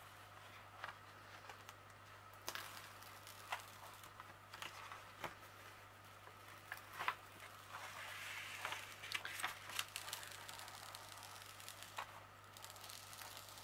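Paper cover sheet of a diamond painting canvas rustling and crinkling under the hands as part of it is lifted back, with scattered light clicks and a longer crinkle about eight seconds in.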